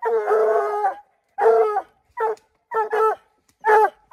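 Hunting hounds baying: one long drawn-out bawl, then about five short, choppy barks.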